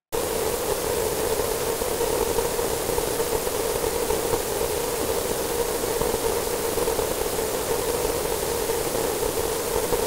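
Steady white-noise hiss with a hum-like tone running through it. It switches on abruptly and holds even throughout.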